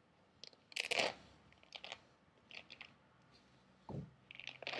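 A knife working through thick pomelo rind: a series of short cutting and tearing noises, the loudest about a second in, with a dull knock near the end.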